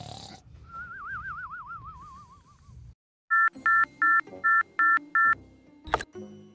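Electronic ringtone: six short two-tone beeps at about three a second. Before them, a warbling electronic tone wavers up and down and slowly falls in pitch. A brief sharp swish comes near the end.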